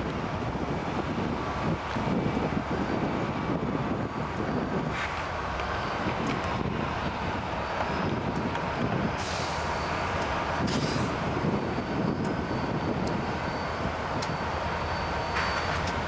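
Diesel locomotives running as they move slowly through a rail yard: a steady engine rumble with a thin high squeal from the wheels on the rails coming and going, and a few brief clicks.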